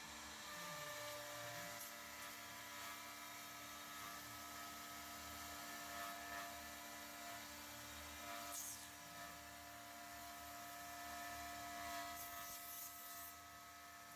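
Mechmate CNC router running with a steady, drill-like whine of several held tones, with a brief falling tone about a second in.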